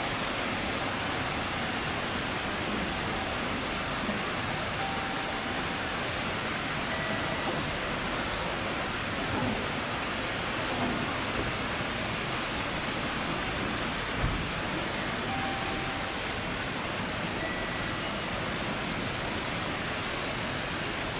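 Heavy rain falling steadily, a dense even hiss, with one brief thump about fourteen seconds in.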